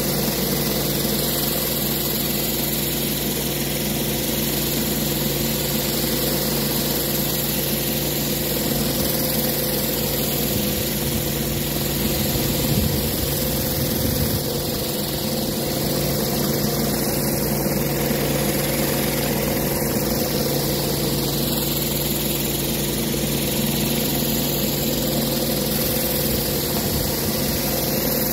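Pressure washer running steadily, its engine drone under the hiss of high-pressure water from a rotary surface cleaner spinning over wet-pour rubber surfacing.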